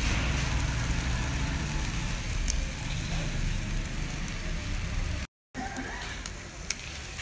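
Steady low rumble of background noise at a street food griddle, with a brief total dropout about five seconds in and a few light clicks after it.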